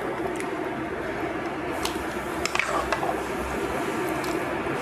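Spatula scooping sauced pasta shells from a non-stick frying pan into a glass baking dish: soft wet squelching with a few sharp clicks of the utensil against the pan and the glass.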